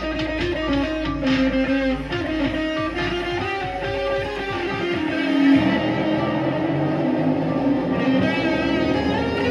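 Electric guitar playing a melodic line of plucked notes over a deep bass; the bass drops out about halfway through while the guitar keeps playing.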